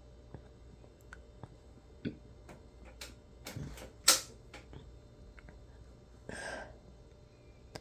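A person hiccuping: short, sharp hics with a louder one about four seconds in, among faint clicks, then a short breathy sound near the end.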